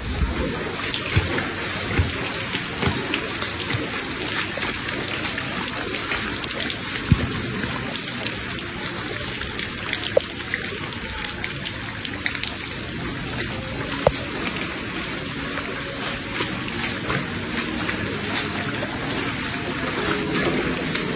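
Steady rain falling onto standing floodwater, an even hiss with scattered sharp drip-like clicks, a few of them louder near the middle.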